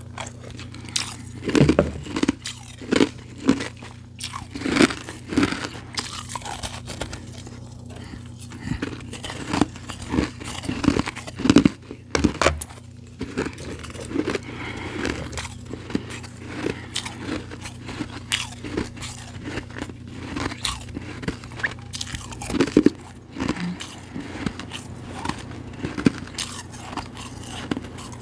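Close-miked crunching and chewing of ice in the mouth: many irregular crisp bites and crunches of powdery and refrozen ice.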